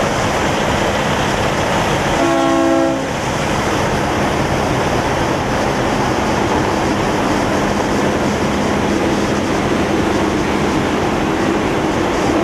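A semi truck's air horn blasts a chord of several notes once, for just under a second, about two seconds in. Under it runs a steady, loud rumble of idling diesel trucks.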